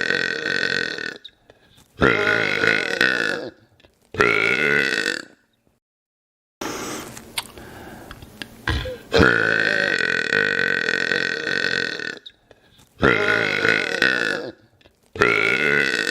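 A man burping loudly and at length, in a repeating pattern of one long burp followed by two shorter ones. Between the two runs there are a few seconds of faint rustling with a small knock.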